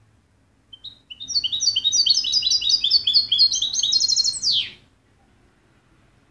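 European goldfinch (jilguero) singing one song phrase of about four seconds: a quick run of high twittering notes that gets faster towards the end and finishes with a falling note.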